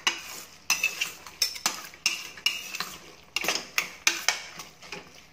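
Steel spatula knocking and scraping against the sides and bottom of a stainless steel pressure cooker while stirring a thick masala of tomato, onion and green peas: quick, irregular strokes, about three a second, that stop shortly before the end.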